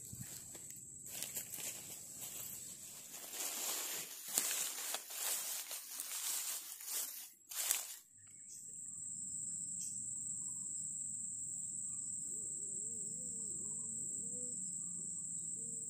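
Dry grass and leaves rustling and crackling as they are handled and piled, over a steady high insect drone. About halfway through the rustling stops suddenly and only the insect drone goes on.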